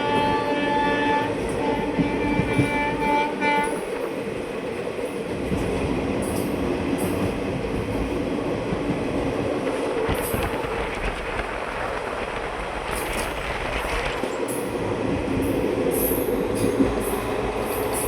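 Indian Railways express train's horn sounding, first a long blast, then after a short break a second blast that ends in a few short toots about four seconds in. After that the train runs past with a steady rumble and clatter of wheels over the rails.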